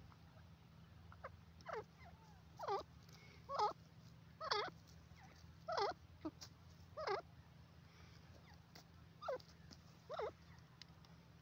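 Grey francolin (teetar) giving a series of soft, short calls, about nine in ten seconds at uneven intervals, each note wavering up and down in pitch.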